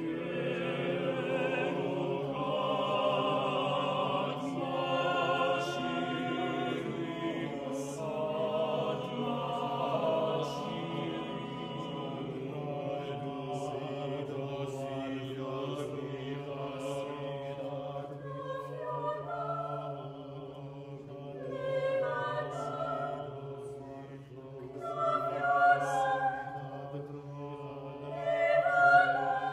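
Vocal ensemble singing a cappella in sustained close chords over a steady low held note. In the second half, the upper voices sing shorter phrases that swell louder and fall back.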